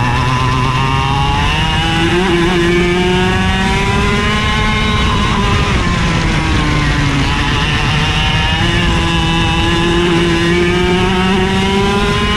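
IAME KA100 100cc two-stroke kart engine at racing speed, heard onboard. The revs climb, drop about halfway through as the kart slows for a corner, then climb again.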